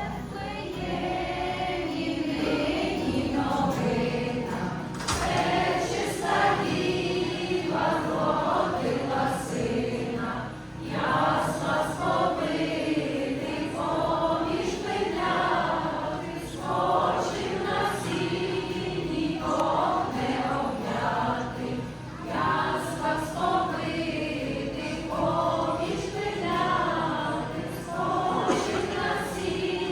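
A choir singing a song, with several voices together in sustained, flowing phrases.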